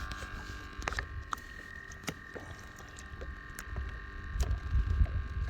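Small waves slapping against a boat hull, with a low wind rumble that swells in the second half, scattered light knocks and clicks, and a faint steady high hum.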